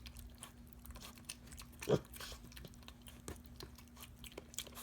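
Pet pig chewing and crunching a snack with its mouth open, in quick irregular smacks and crunches. One louder short thump about two seconds in.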